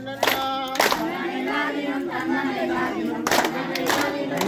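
Kummi dance song: a group of women and girls singing together unaccompanied, with the dancers' loud hand claps in pairs, two in the first second and two more a little after three seconds in.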